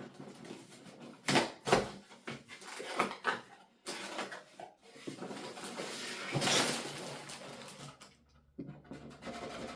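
Cardboard Lego set box being opened and handled: a few sharp knocks and clicks, then several seconds of rustling and scraping of cardboard and its contents.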